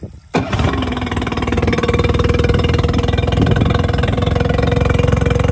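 Honda 20 HP four-stroke outboard motor starting up abruptly about a third of a second in, then running steadily at idle out of the water on flushing muffs.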